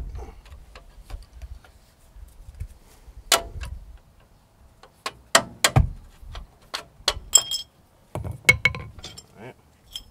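Irregular metal-on-metal taps and clinks, some ringing briefly: a screwdriver working against a disc brake caliper and its slider pins. The clicks come thicker in the second half.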